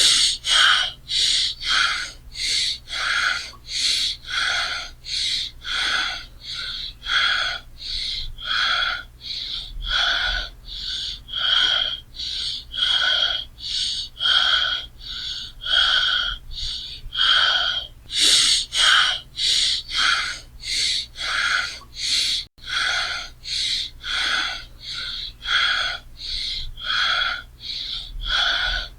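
A person breathing heavily and fast, each breath a short, airy rush in an even rhythm of about three breaths every two seconds.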